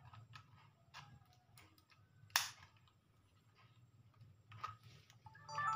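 Small plastic clicks and taps from a Sony DCR-SX21E Handycam camcorder being handled and its buttons and covers worked, with one sharp snap about two seconds in.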